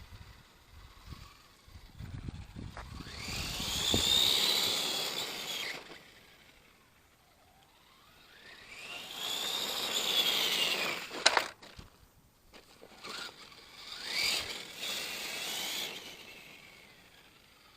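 3D-printed RC monster truck's motor and gears whining as it speeds up and slows down, three runs that each rise and then fall in pitch, with a sharp click about eleven seconds in.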